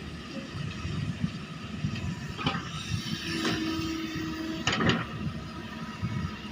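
Excavator's diesel engine running with a steady low rumble. Three short, sharp noises come about a second apart, and a brief steady whine sounds near the middle.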